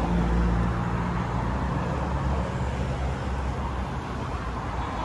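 A vehicle engine idling steadily with a low hum.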